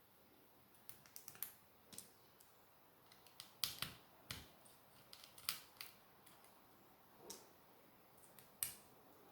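Faint, irregular light clicks of a small screwdriver working the screws on a tablet's battery connection, with near silence between them.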